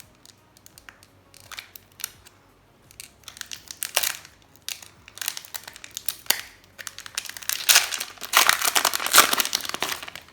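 Foil wrapper of a Magic: The Gathering Commander Legends draft booster pack crinkling as it is handled and torn open: scattered light crackles at first, with the loudest, densest crinkling over the last few seconds.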